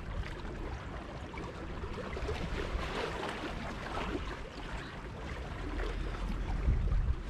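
Outdoor wind and water ambience, with low wind rumble buffeting the microphone near the end.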